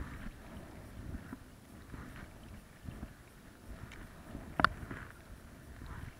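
Stand-up paddleboard paddle strokes in lake water, a soft splash and swirl about once a second. A single sharp knock stands out about four and a half seconds in.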